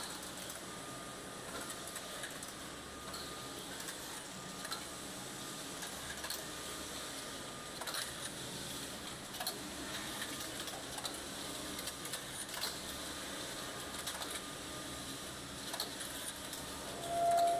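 Computerized flat knitting machine for collars running, with a steady mechanical clatter and many scattered clicks. A thin whine comes and goes every few seconds as the carriage travels along the needle bed, and a brief louder tone sounds near the end.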